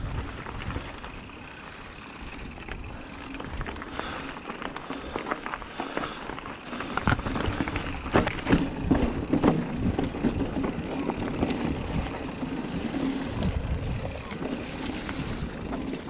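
Mountain bike being ridden over a rough trail: tyres on dirt with the bike rattling and clattering, the knocks getting louder and more frequent from about halfway through.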